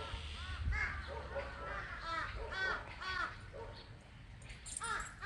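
Several crows cawing, short harsh caws coming two or three a second and overlapping, with a brief lull a little before the end; the uploader takes them for angry crows objecting to being filmed.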